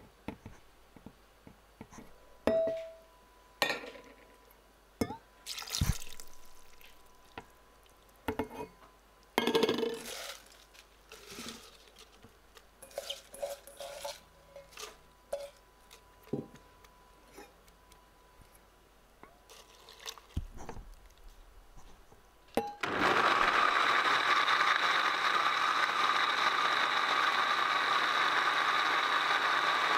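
Countertop blender starting suddenly about two-thirds of the way through and running steadily at full speed, puréeing soaked cashews, mint leaves and liquid into a smooth green mixture. Before it starts, scattered clinks and knocks as ingredients go into the blender jug.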